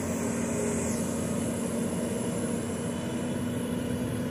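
Heavy diesel truck engine labouring steadily under load, hauling loaded sugarcane trailers up a steep dirt grade: a constant engine drone at one pitch.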